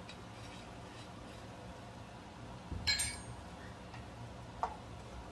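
A single sharp clink, like a glass or hard object being knocked or set down in a kitchen, about three seconds in, with a lighter tap a little later, over a faint steady background.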